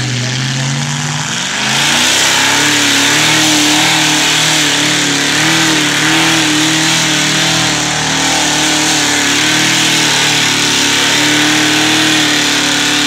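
A mud truck's engine on 40-inch tires revs up about a second and a half in, then holds at high revs with a wavering pitch as it churns through a deep mud pit.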